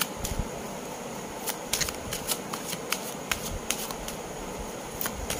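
A deck of tarot cards being shuffled by hand, an irregular run of sharp card snaps and flicks over a steady hiss.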